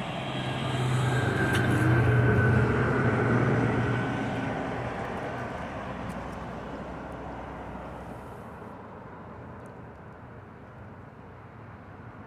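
A motor vehicle passing by: a low engine hum and rushing noise that swell to a peak about two seconds in, then fade away over several seconds.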